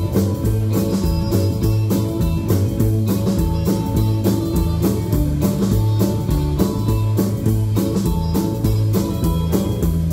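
Live rockabilly band playing an instrumental break: guitar over drums keeping a steady beat, with no singing.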